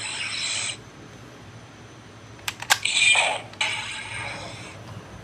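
Hasbro Lightning Collection Power Rangers morpher with the Sabertooth Tiger power coin: short electronic sound effects from its small built-in speaker, one right at the start and another about three seconds in. A few sharp plastic clicks from the morpher being handled come just before the second effect and again near the end.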